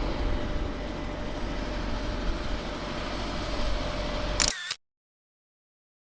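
Steady helicopter cabin noise of engine and rotor, heard from inside the aircraft. About four and a half seconds in, it cuts off with a brief click and gives way to dead silence, and another short click comes at the very end.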